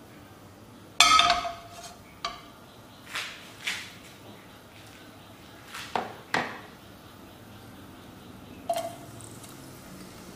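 A wok knocking and sliding on a gas stove's metal grate. There is a sharp clank with a short ring about a second in, then several lighter knocks and scrapes, and a last clink with a brief ring near the end.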